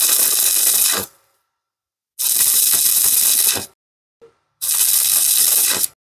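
Stick-welding arc crackling and hissing in three bursts of about a second and a half, broken off between them. The arc is struck and broken again and again on an overhead fillet weld, a stop-start way of controlling the puddle so it doesn't drip. A brief tick comes just before the third burst.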